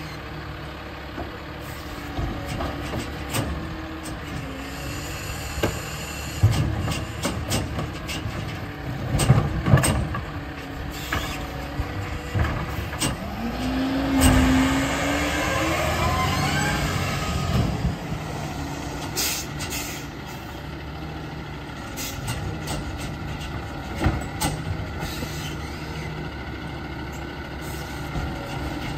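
Automated side-loader garbage truck with a Pac Tech Bandit arm at work: steady diesel running with clanks and knocks from the arm and carts, and air-brake hiss. Around halfway through, the engine note rises as the truck pulls ahead, and near the end the arm lifts the next cart.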